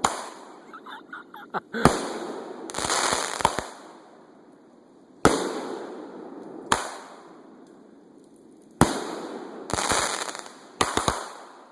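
Fireworks bursting: about ten sharp bangs at uneven intervals, some in quick pairs and clusters, each trailing off in a fading rumble.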